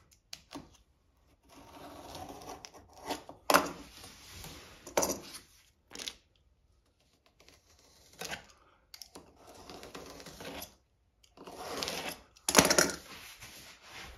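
Utility knife drawn through a thick foam floor tile along a steel ruler: several scraping slicing strokes of a second or two each, with sharp clicks and knocks as the ruler and tile are handled, the loudest knock near the end.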